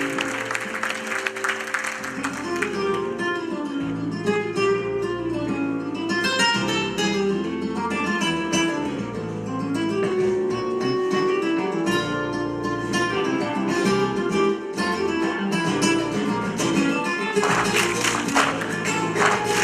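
Acoustic guitar playing in flamenco style, picking single-note melodic lines, then breaking into fast strummed chords near the end.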